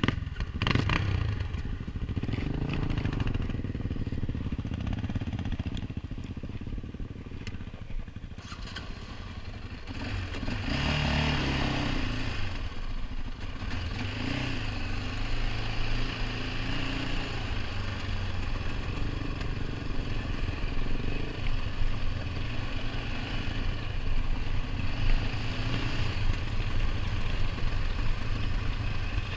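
ATV engine running while riding a dirt trail, with its pitch rising and falling as the throttle changes; it gets louder about ten seconds in.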